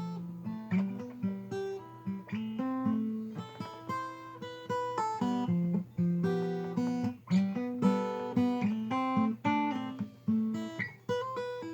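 Alvarez acoustic guitar being played: a steady run of picked notes and chords over changing bass notes.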